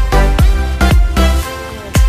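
Electronic dance music with a steady kick drum beat a little over twice a second and sustained chords above it; the drum drops out briefly near the end and comes back.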